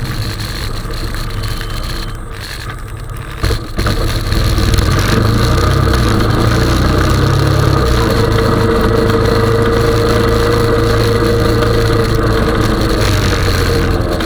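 Honda 420 ATV's single-cylinder engine running while pushing a snow plow. There is a sharp knock about three and a half seconds in, and the engine runs louder from then on.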